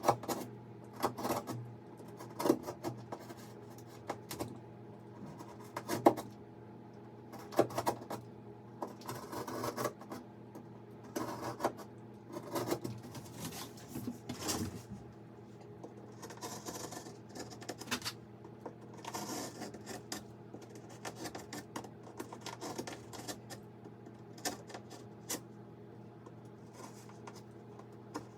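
Irregular scraping, tapping and rustling of hand work, with a few sharper knocks in the first half, over a steady low electrical hum.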